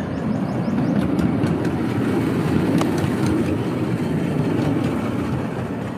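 Miniature ride-on park train running along its narrow-gauge track and over a small bridge: a steady low running noise with a few light clicks.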